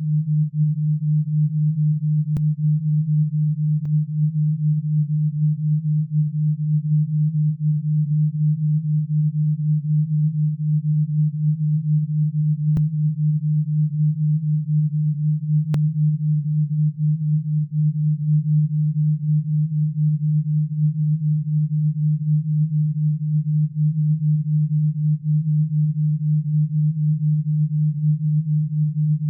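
Low electronic sine tone hums steadily and pulses rapidly in loudness: an alpha-wave brainwave-entrainment tone. A few faint clicks sound now and then.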